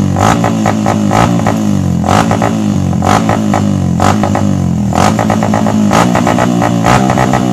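Suzuki Raider 150 single-cylinder engine with a loud aftermarket open exhaust pipe, revved repeatedly in sharp blips.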